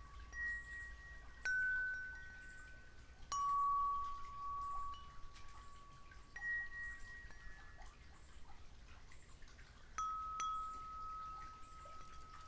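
Wind chimes ringing slowly, one clear note at a time struck every few seconds, each ringing on for a second or more before the next.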